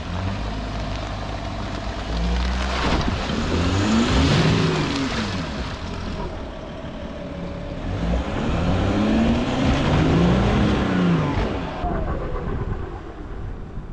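An off-road 4x4's engine revved hard twice, its pitch rising and then falling each time, as the mud-caked tyres work through deep, boggy ground.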